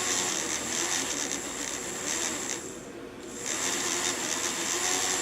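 Small fischertechnik electric motor spinning a propeller, a steady whirring with a high whine. It drops away briefly about three seconds in and then picks up again.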